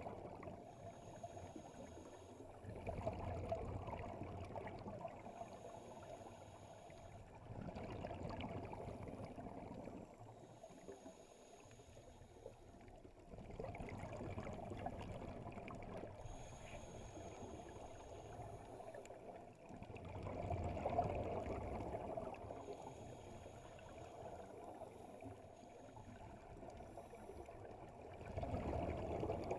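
Scuba regulator breathing heard underwater: a short high hiss on each inhale alternating with a muffled rush of exhaled bubbles, the rush swelling about five times, every five to six seconds.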